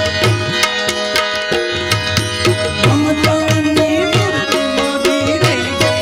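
Gujarati devotional bhajan: a harmonium holds sustained chords while a hand drum keeps an even beat and small hand cymbals click along. A male voice comes in about halfway with a long, ornamented sung phrase.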